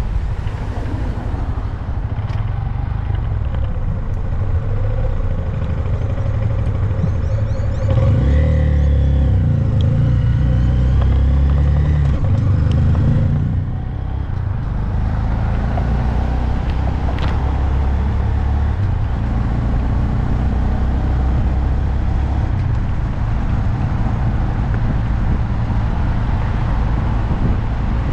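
2022 Honda Grom's small single-cylinder engine running under way, with heavy wind buffeting on the microphone. About eight seconds in it pulls harder and louder for some five seconds, then drops off sharply, as when the throttle is closed or a gear is changed, and runs on steadily.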